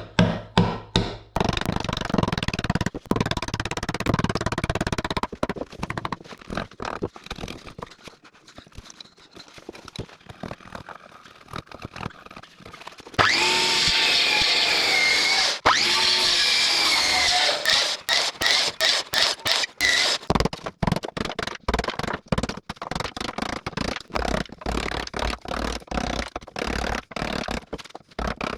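Tools cutting brace pockets into an oak timber-frame beam: a long series of sharp wooden knocks, some in quick even runs, and a power tool running for about four seconds near the middle with its pitch rising and falling.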